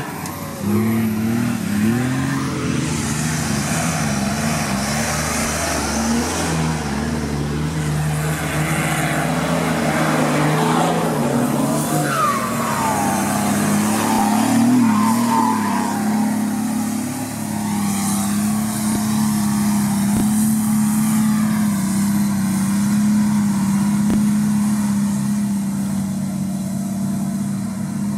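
Modified off-road 4x4 engines labouring up a rutted dirt track, the revs rising and falling repeatedly. From a little past halfway, a Nissan Patrol's engine holds a steady pull.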